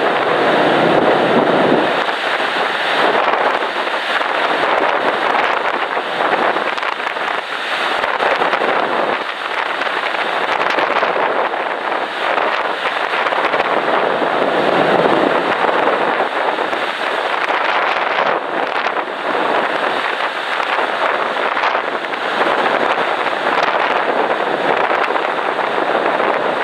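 Wind rushing over the microphone on a moving ferry's open deck, swelling and easing in gusts, over the wash of the sea.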